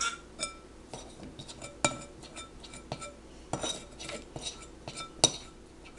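Scattered clinks and taps of a glass mixing bowl and a metal baking sheet as cookie dough is taken from the bowl and set on the tray, with a sharper knock a little before two seconds in and the loudest about five seconds in.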